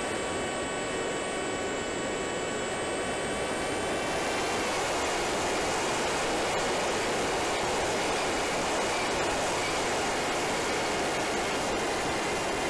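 Electric pusher motor of a Wing Wing Z-84 foam flying wing whining at a steady pitch, heard from the onboard camera under loud wind rush over the microphone. About four seconds in the motor whine grows fainter and the wind dominates.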